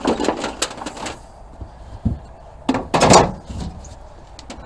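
Knocks and clunks of hard objects being handled and moved, with a low thud about two seconds in and a louder clattering scrape about three seconds in, as tools are searched through for a wrench.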